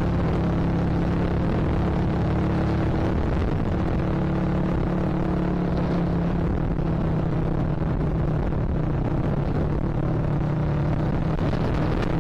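Yamaha Vixion Advance's 150 cc single-cylinder engine running at a steady cruising pace, with wind rushing over the camera microphone.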